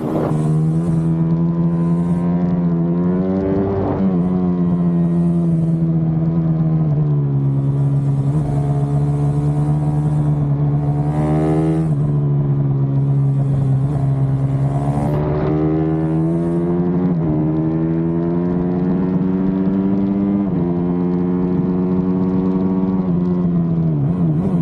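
Motorcycle engine running hard, holding a steady high pitch for a few seconds at a time and dipping then climbing again several times, with gusts of wind noise.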